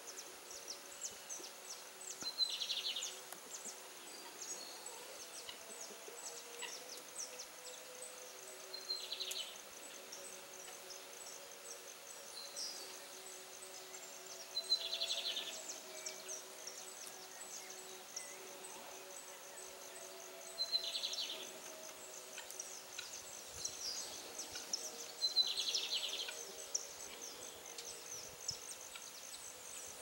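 Countryside ambience of insects and birds: a dense, high chirring throughout, with one bird giving a short call five times, about every six seconds.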